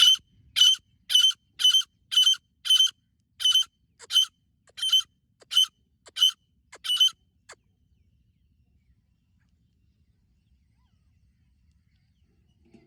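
Female grey francolin calling: a run of about a dozen short, sharp, high calls, roughly one every half second. The calls stop about seven and a half seconds in.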